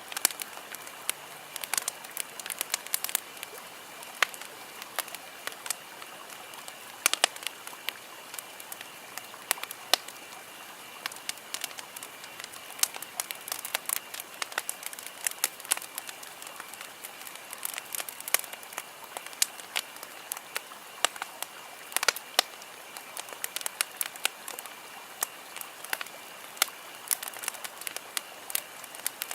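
Campfire crackling: dense, irregular sharp pops and snaps over a steady hiss.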